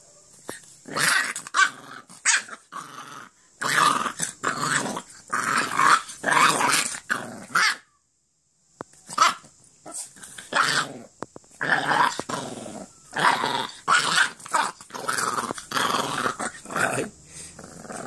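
American Staffordshire terrier puppy growling in repeated short bursts at a hand playing with its muzzle. The growls break off completely for about a second near the middle, then carry on.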